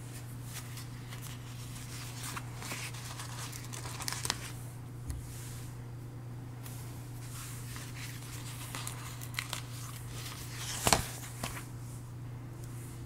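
Planner stickers and their paper sheet being handled: small scattered crinkles and crackles as stickers are peeled and pressed onto the planner page, with one louder rustle about eleven seconds in as the sticker sheet is moved.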